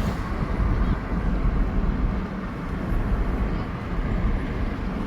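Steady engine and tyre noise of a car driving along a highway.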